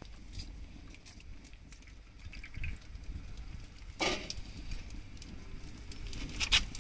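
Quiet handling noises: faint ticks and one sharp knock about four seconds in, over a low steady rumble.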